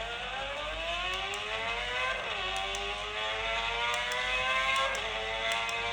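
Recorded supercar engine sound from the car-model alarm clock: an engine accelerating hard through the gears, its pitch climbing steadily and dropping at an upshift about two seconds in and again near the five-second mark.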